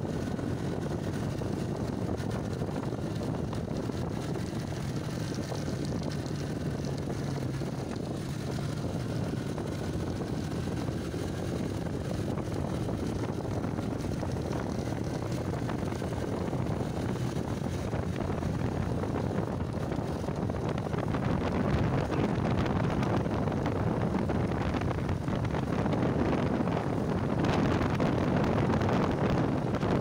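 Motorcycle engine running steadily while riding at road speed, mixed with wind rushing over the microphone; the sound grows a little louder in the last third.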